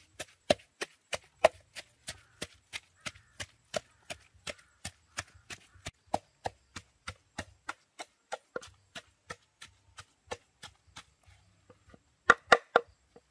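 Knife chopping food on a cutting board in a steady rhythm, about three strokes a second, with three harder strokes near the end.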